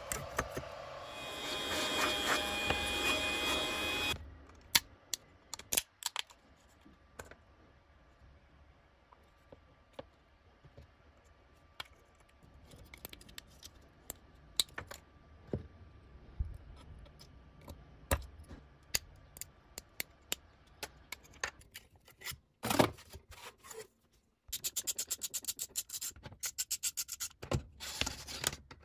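Scraping and creaking as a white plastic 3D print is pried off a 3D printer's bed, then sparse sharp clicks and snaps as support material is broken out of printed parts with pliers. Near the end comes a fast, even run of clicks.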